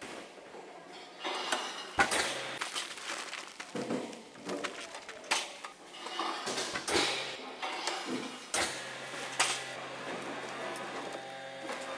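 Packing-line clatter: a handful of sharp knocks and clanks of handling, with a low steady machine hum coming in about halfway through.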